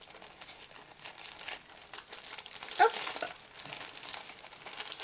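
Clear plastic cellophane packaging of a chipboard embellishment pack crinkling in irregular rustles as it is handled and a piece is worked loose inside it. A short rising squeak about three seconds in.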